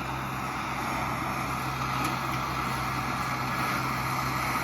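A gas torch or burner running steadily while it heats casting flasks, giving an even rushing hiss over a constant low hum.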